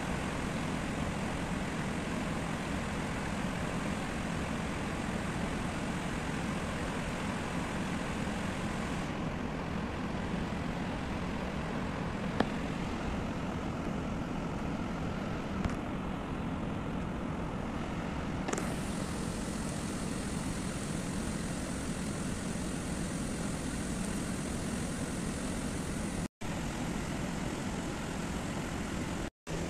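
Steady roar of a fast-flowing river running over rocks and rapids, with a few faint ticks in the middle and two brief dropouts near the end.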